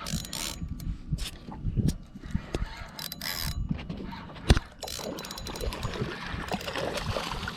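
Fishing reel cranking and clicking as a hooked redfish is fought and pulls line. One sharp knock about halfway through is the loudest sound.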